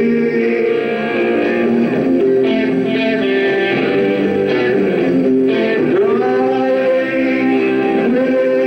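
Rock band playing live, electric guitars to the fore with sustained ringing chords and notes.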